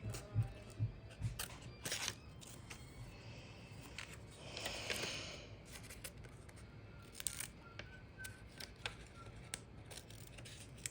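Scissors cutting paper: scattered sharp snips, with a longer cut about four seconds in.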